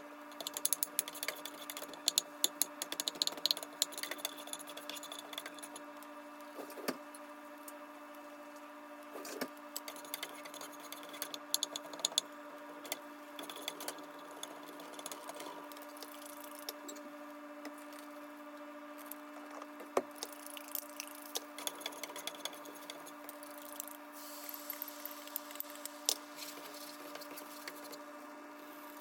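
Cooking sounds: scattered clicks, taps and clatter of kitchen utensils and cookware while eggs with spinach are prepared, over a steady hum.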